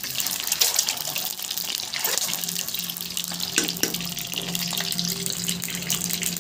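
Peeled boiled eggs frying in hot oil in a kadhai: the oil sizzles steadily with many small crackles and spits, bubbling hard.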